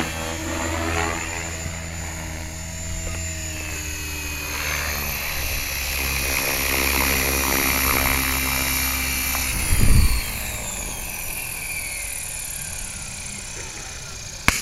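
Align T-Rex 550 electric RC helicopter's motor and main rotor running with a steady, many-toned hum and whine as it comes down and lands. A brief loud low thump comes about ten seconds in, and after it the rotor and motor spool down with a falling whine.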